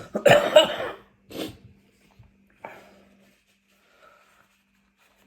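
A woman coughing from the chilli heat of super-spicy noodles. A loud burst of coughing comes in the first second, followed by two weaker coughs over the next two seconds.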